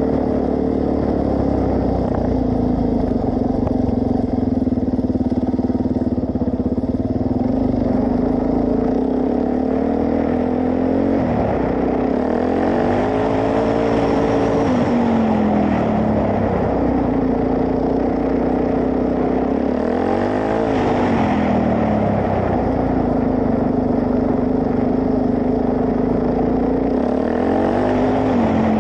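Suzuki DR-Z400S single-cylinder four-stroke engine running while the bike is ridden, holding a steady note for long stretches. The engine speed rises and falls about three times.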